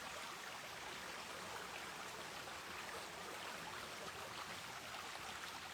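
Creek water running: a steady, even rush of flowing water.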